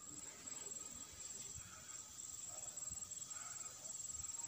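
Insects in the undergrowth: a faint, steady, high-pitched drone that runs on without a break, with a few soft low thumps from handling or steps.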